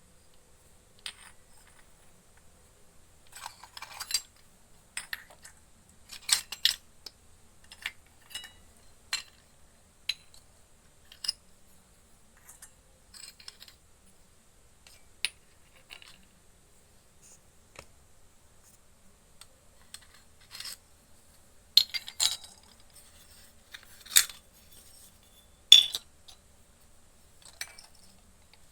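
Small pieces of a toy cooking set being handled and set down: scattered clicks, taps and light clinks at an uneven pace, with a few sharper knocks in the last few seconds.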